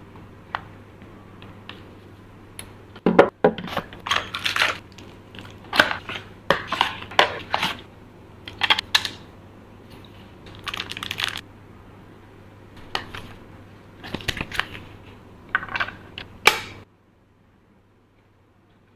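Handling noises: irregular clicks, knocks and short rustles over a low steady hum, stopping suddenly near the end.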